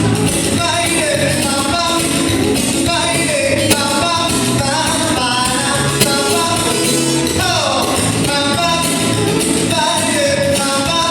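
Amplified live music with singing: a Latin pop song at a sound check, over a steady beat, with a sung note sliding down about seven and a half seconds in.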